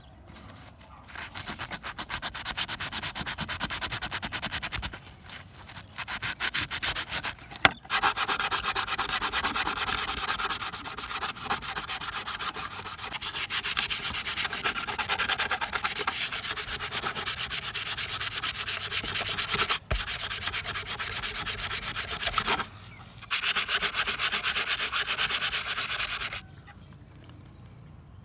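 Abrasive sanding on a kitchen knife's steel blade: a steady rasping that runs in long stretches, with brief breaks, and stops shortly before the end.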